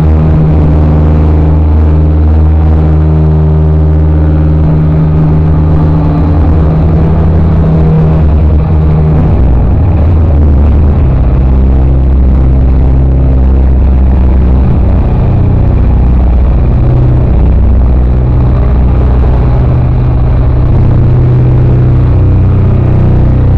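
Loud live music heard from the crowd, overloading the recording: long held bass notes that shift to a new pitch every few seconds, with a dense wash above them.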